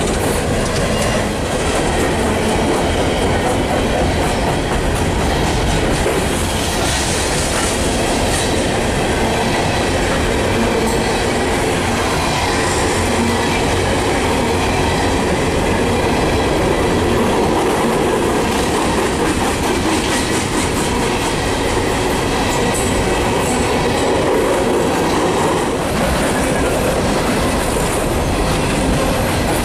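Norfolk Southern freight cars rolling past close by: steady noise of steel wheels on the rails, with frequent clicks as the wheels pass over the rail joints.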